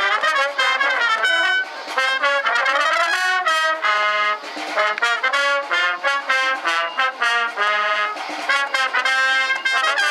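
High school wind band playing a lively piece in short, rhythmic notes, with the brass prominent.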